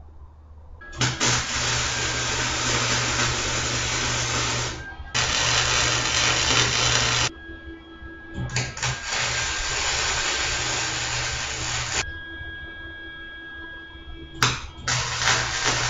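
Electric arc welder laying beads on the sheet-steel foundry box: a steady noisy hiss with a low hum under it, in several bursts of two to four seconds that stop and start as each bead is run.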